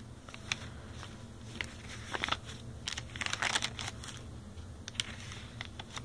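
Paper pages of a handmade junk journal of coffee- and tea-dyed papers rustling and crinkling as they are handled and turned, with scattered soft clicks; the loudest rustling comes about two and three to three and a half seconds in.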